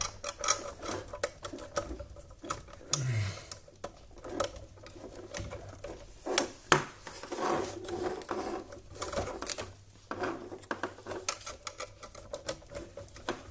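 Scattered, irregular clicks and knocks of hands handling a USB hub and plugging its USB cable into a computer.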